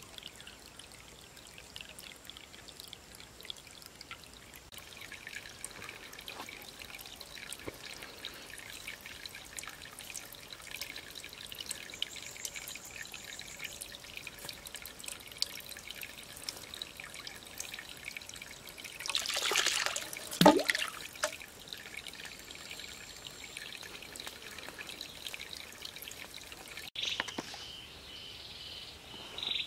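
Water trickling and dripping from a split-bamboo pipe into a shallow pool, with a louder splash about two-thirds of the way through. Near the end a rhythmic chirping animal call pulses a few times a second.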